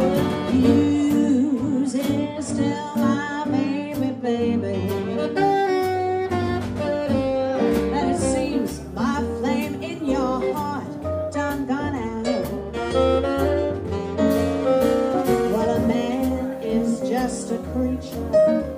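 Live small jazz band playing an instrumental passage, a saxophone carrying the lead over piano, electric guitar, double bass and drums with cymbal hits keeping time.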